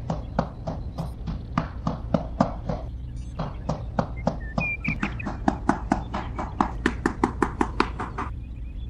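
Small claw hammer tapping a wooden stick post down into a sand base: a long run of light, sharp taps, about three to four a second, quickening past the middle and stopping shortly before the end.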